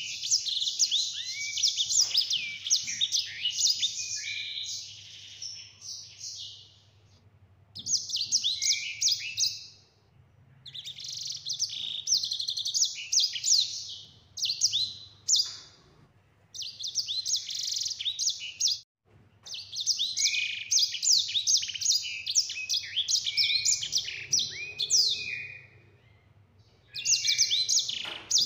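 Grey singing finch (sanger) singing a long rolling song of rapid trills and down-slurred whistles. The song comes in bouts of a few seconds, with short pauses between them.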